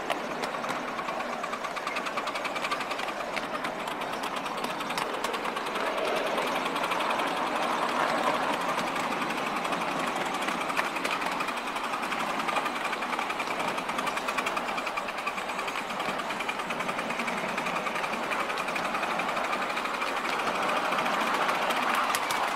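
A 7¼-inch gauge miniature railway train running along the track, heard from a seat on the train: a fast, steady mechanical clatter.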